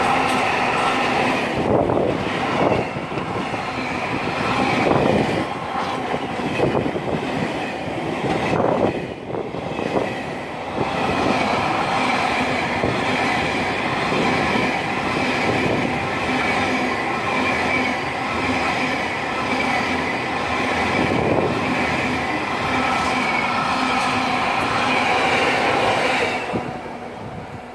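Network Rail track renewal train of heavy wagons rolling past at close range, with a steady wheel squeal and irregular clacks over the rail joints. The trailing Class 66 diesel locomotive passes near the end and the noise falls away quickly.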